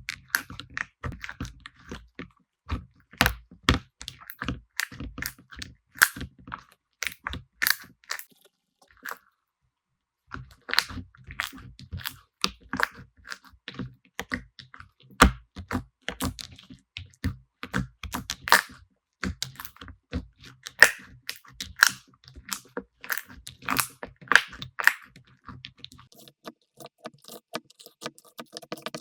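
Slime being squeezed and pressed by hand, giving a dense run of sharp crackling pops and clicks, with a brief pause about nine seconds in.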